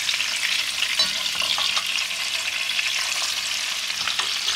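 Flour-dredged trout shallow-frying in hot vegetable oil in a nonstick pan: a steady sizzle and crackle of oil, with a few light clicks of the spatulas against the pan. The first side is fried and the fish is about to be turned.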